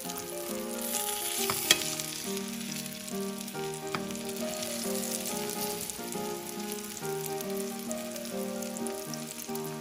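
Panko-breaded flounder fillets sizzling as they pan-fry in oil, with one sharp click a little under two seconds in. Background music with a melody plays along.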